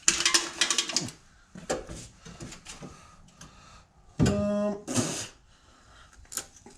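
Metal suspension hardware clinking and rattling as a leaf-spring shackle/slider bracket is handled and tried against the frame bolt holes. The clatter is dense for the first second, then comes as scattered clicks. A short steady hum comes a little over four seconds in.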